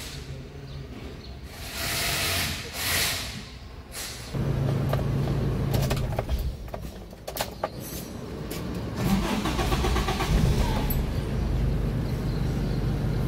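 Toyota Kijang's 1.8-litre petrol engine being started: a few seconds of cranking noise, then the engine catches about four seconds in and runs with a steady low idle that grows louder near nine seconds.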